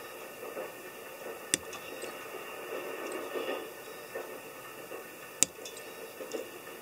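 Small cutting pliers snipping off the excess ends of 0.3 mm brass wire soldered to a brass model car side: two sharp snips, about a second and a half in and again near five and a half seconds, with soft handling rustle between.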